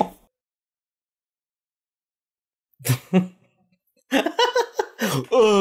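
Dead silence for about two and a half seconds, then a short burst of voice about three seconds in, and a person laughing from about four seconds in.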